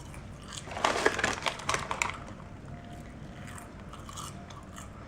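Crunching and chewing crisp roasted seaweed snacks, loudest in a burst of crackly bites about a second in, then fainter chewing.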